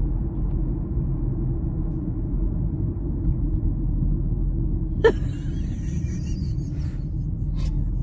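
Steady road and engine rumble inside the cabin of a moving car. A brief sudden sound comes about five seconds in, followed by a couple of seconds of fainter, breathy higher noise.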